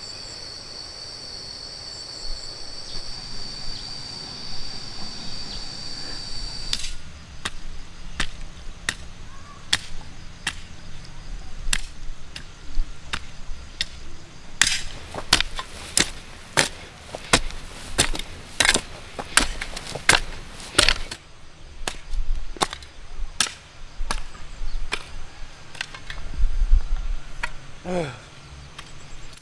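A steady high whine for about the first quarter, then a tool chopping in a steady rhythm, about one and a half strikes a second, running on to near the end.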